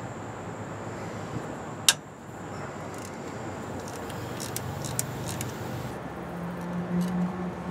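Socket ratchet working a bolt on a truck's Bendix AD-9 air dryer purge valve: one sharp metallic click about two seconds in, then a quick run of a few smaller ratchet clicks about two-thirds of the way through, over steady background noise.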